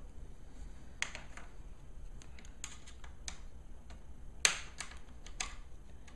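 Plastic retaining clips of an Asus UL50VT laptop's screen bezel snapping loose as a small flathead screwdriver pries around its edge: scattered sharp clicks, the loudest about a second in and about four and a half seconds in.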